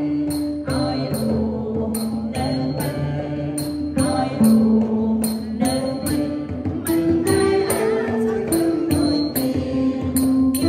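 A small church group singing a hymn in Khmer together, one voice through a microphone, holding and stepping between long notes. Under the singing, a jingling percussion beat strikes about twice a second.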